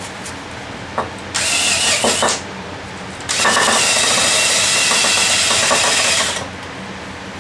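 A power tool run in two bursts, a short one of about a second and then a longer one of about three seconds, over a steady low hum.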